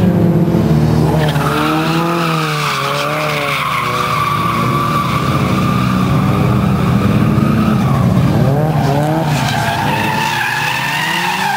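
Drift cars sliding through a hairpin, tyres squealing steadily while their engines rev up and down with the throttle.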